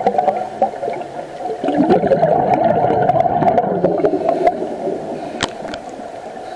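Underwater bubbling and gurgling of a scuba diver's exhaled air, swelling for a few seconds and then fading, with a few faint clicks near the end.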